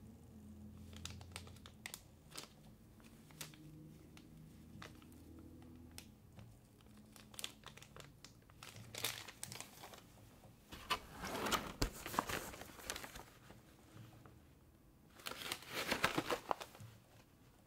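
Clear plastic bags of small action-figure parts crinkling as gloved hands turn and squeeze them, with scattered crackles at first and louder spells of crinkling about halfway through and near the end.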